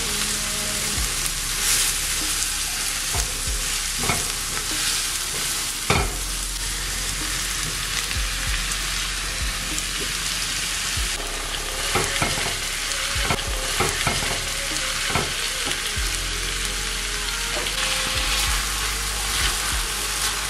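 Onion, then sliced pork and vegetables, sizzling in hot oil in an enamel-lined frying pan while a silicone spatula stirs, scraping the pan and knocking against it now and then, the sharpest knock about six seconds in.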